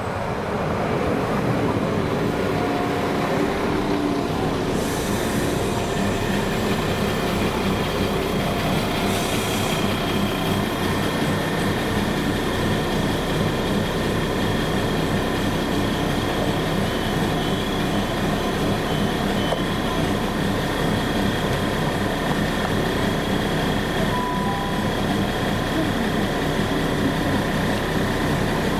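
Class 172 diesel multiple unit drawing to a stop at the platform, then standing with its underfloor diesel engines running steadily at idle. Two short hisses of air come about five and ten seconds in.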